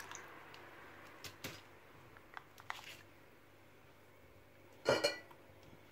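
Glass bottles and a plastic funnel handled on a countertop: a few light knocks, then a louder clink of glass that rings briefly about five seconds in.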